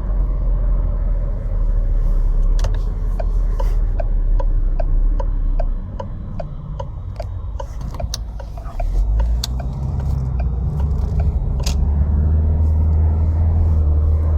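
Car engine running steadily after a repair for overheating, which the owner says sounds really good. A light, regular ticking runs through much of it, about three a second. The rumble drops off for a few seconds about six seconds in, then comes back louder and deeper from about nine seconds.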